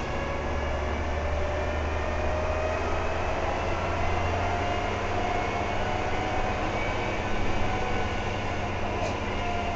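Inside a SICCAR 177 city bus under way: the steady drone of the engine and running gear, with a faint whine that rises a little in pitch and later falls again.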